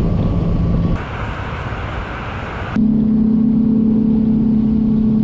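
Bass boat's outboard motor running at speed, a steady low drone mixed with rushing wind and water noise; the drone steps abruptly higher in pitch about three seconds in.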